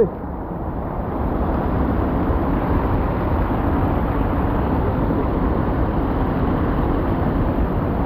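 Water pouring over a weir into a foaming plunge pool close by: a steady, unbroken rush of falling water.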